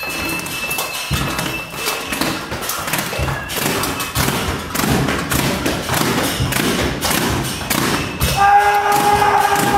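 A plastic water bottle struck over and over against a metal stair railing as improvised percussion: a fast, irregular run of knocks and taps. Near the end a steady pitched tone joins in.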